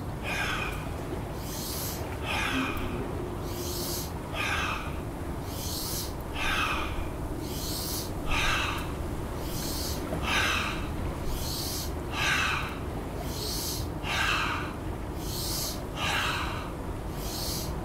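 A person breathing forcefully and rhythmically, in the qigong 'expelling of toxins' exercise: a hissing in-breath and a louder rushing out-breath blown through hands cupped like a loudspeaker, one full breath about every two seconds, repeated around nine times.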